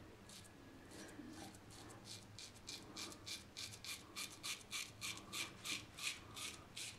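Razorock Blackhawk single-edge safety razor scraping through three-day stubble in short strokes: a quick, faint run of scratches, about four a second, starting about two seconds in.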